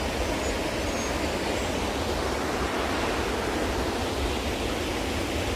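Waterfall on a river: falling water rushing as a steady, even hiss.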